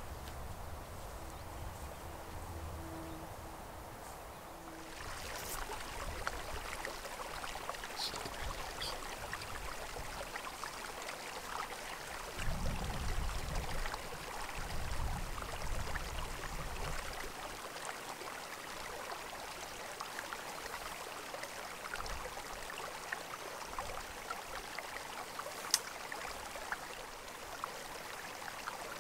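Steady rushing hiss of a flowing creek, starting about five seconds in after a quieter stretch, with low wind rumbles on the microphone around the middle and one sharp click near the end.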